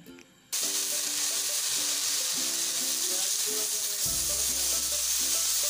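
Fish fillets sizzling as they fry in a little oil on a nonstick tawa, a steady hiss that starts suddenly about half a second in.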